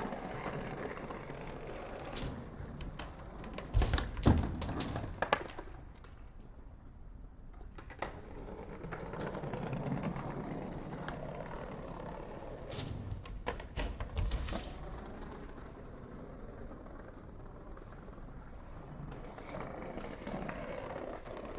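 Skateboard wheels rolling over pavement, swelling and fading, with several sharp clacks of the board hitting the ground: the loudest about four seconds in, and a cluster near the middle.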